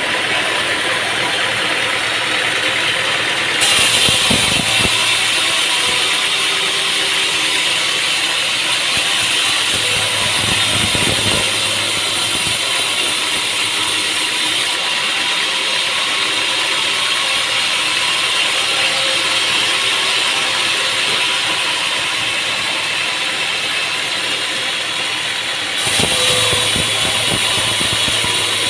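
Sawmill machinery running steadily with engine noise; a brighter high-pitched hiss comes in about four seconds in, eases off about halfway, and returns near the end.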